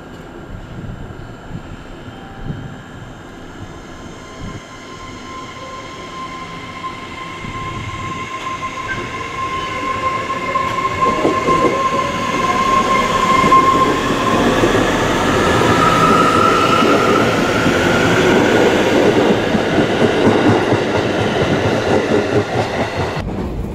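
JR Kyushu 811 series electric multiple unit pulling into a station, growing steadily louder as it comes up the platform. A high steady whine runs through the first half, a short rising whine follows near the middle, and a loud rumble of wheels and running gear fills the second half.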